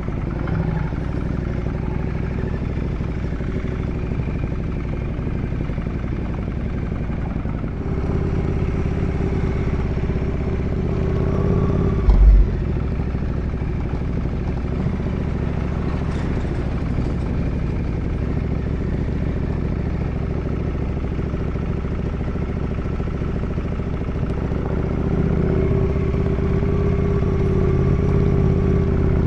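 Ducati Multistrada 1200S's L-twin engine running steadily under way, with the rider's own bike loud and close. The engine grows a little louder about eight seconds in and again near the end, and there is a brief low thump about twelve seconds in.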